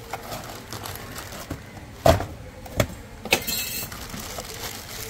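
Packaging being opened and handled: three sharp knocks between about two and three and a half seconds in, the last followed by a brief crinkling rustle.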